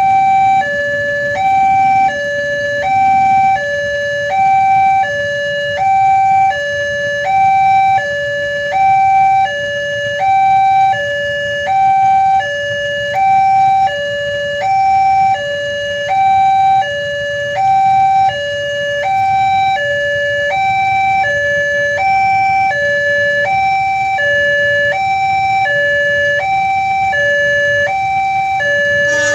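Railway level-crossing warning alarm sounding its two-tone electronic 'ting-tong', alternating steadily between a lower and a higher pitch about every 0.7 s. A low rumble underneath grows louder in the second half.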